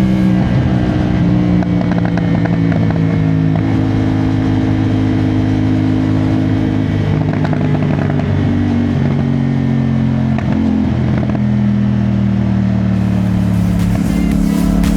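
CFMOTO 450SR-S motorcycle's parallel-twin engine and exhaust running under way at a steady speed. The engine note holds steady for several seconds at a time, shifting to a new pitch a few times and wavering briefly about two-thirds of the way through.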